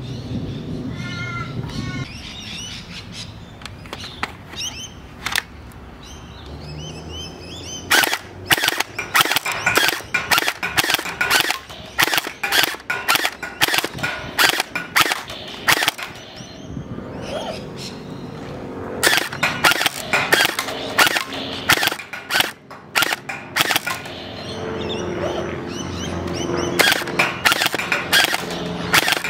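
Electric gel ball blaster firing at targets in three runs of sharp, rapid shots, about two to three a second, with short pauses between runs. Birds chirp briefly in the first couple of seconds.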